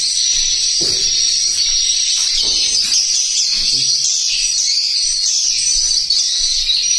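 Recorded swiftlet calls played through tweeters in a swiftlet house: a dense, continuous high chirping with no break, the lure sound meant to draw swiftlets in to roost.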